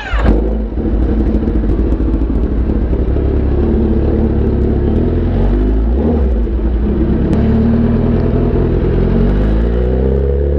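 Sport motorcycle's inline-four engine running at low revs, starting abruptly. Its pitch climbs near the end as the revs rise.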